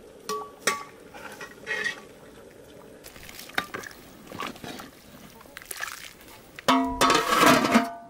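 A metal ladle stirring soup in a large aluminium pot, clinking against the pot with short rings and sloshing the liquid. Near the end, the pot's aluminium lid is set down with a loud ringing clang and clatters for about a second as it settles.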